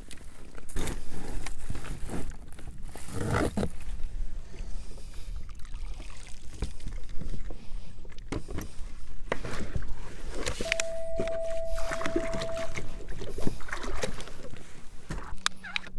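Wind on the microphone and water lapping and splashing against a kayak, with irregular knocks and splashes as an angler handles the fish and gear on board. Past the middle, a steady mid-pitched tone sounds for about two seconds.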